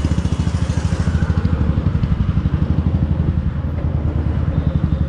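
Motorcycle engine running at low speed in slow traffic, a steady rapid beat heard close up from the rider's seat.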